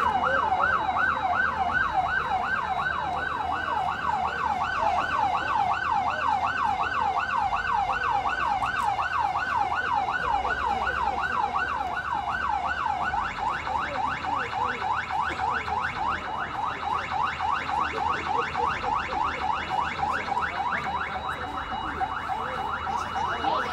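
Electronic siren sounding in fast repeated rising sweeps, about four a second, the alarm of a fire drill. About halfway through, the sweeps reach a little higher.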